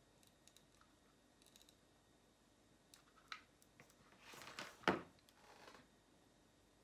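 Handling noise from a hot glue gun and wooden slices: a few faint clicks, then a rustle and a single sharp knock about five seconds in, the loudest sound, as the plastic glue gun is set down on the table, followed by a brief rub of wood on wood as the head is pressed into place.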